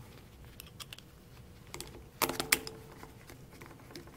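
Light clicks and taps of small steel screws and a T-handle hex key being handled on a wooden workbench. Two sharper metallic clinks with a brief ring come a little past halfway.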